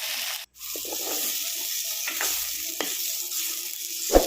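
Chicken frying in oil in a clay pot, sizzling steadily while a spoon stirs it, with a few short knocks of the spoon against the pot; the loudest knock comes near the end. The sound drops out briefly about half a second in.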